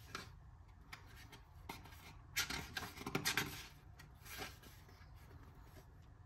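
Paper pages of a book being turned and riffled by hand: a series of rustles and flaps, with the loudest run of quick page flips about halfway through.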